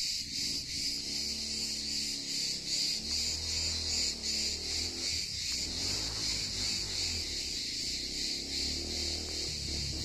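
A dense chorus of cicadas in the trees: a steady high-pitched shrill with a fast pulsing texture, over a low rumble.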